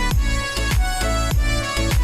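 Background music with a steady beat: a deep drum hit a little under twice a second under a sustained, bright melody.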